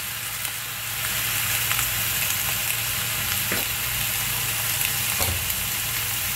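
Lamb shanks sizzling steadily in hot oil in a pan as they brown, with a few faint crackles.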